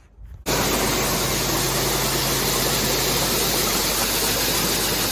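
Grain auger and grain cleaner running with shelled corn feeding through: a loud, steady rushing noise with a low hum that starts abruptly about half a second in.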